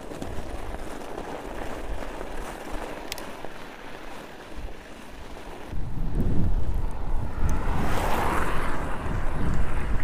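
Wind buffeting the microphone of a fatbike rider riding through snow in a blizzard. The buffeting turns much louder and rougher about six seconds in.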